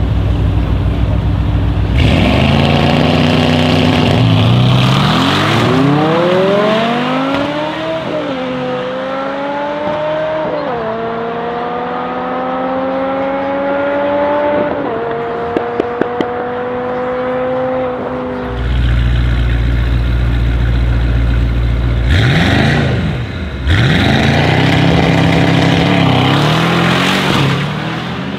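Drag-race launches: a BMW M6's V10 and the Brabus 800 E63 S's twin-turbo V8 launch hard and pull away through several upshifts, the engine note climbing and dropping at each shift as it fades into the distance. Then a deeper engine idles at the line, blips twice, and launches loudly near the end.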